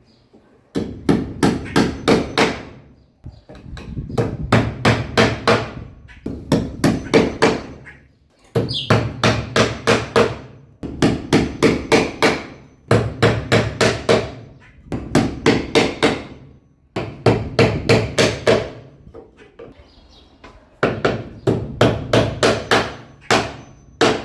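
A hammer driving a nail: quick runs of about four to six sharp blows, roughly two seconds per run, repeated with short pauses between runs.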